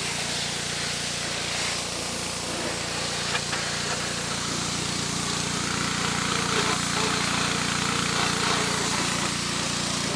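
Gas-engine pressure washer running steadily, its small engine humming under a constant hiss of spraying water.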